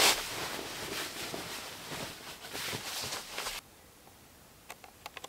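Rustling of a quilted sleeping bag and cot bedding being smoothed and tucked, with a few soft knocks. It cuts off suddenly to quiet outdoor air, and near the end come a few faint small clicks from handling the plastic electric-fence energizer.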